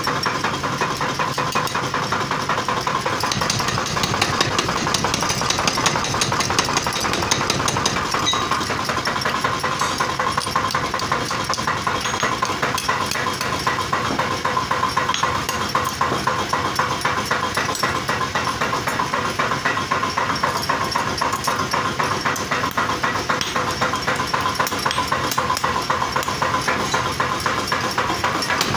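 Forging power hammer running continuously, striking a rapid, steady train of blows as it shapes hot steel for sickle ears.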